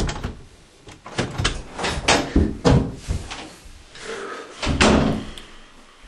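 Irregular run of loud bangs and thumps on a wooden panel door, several in quick succession, then another heavy thump about five seconds in.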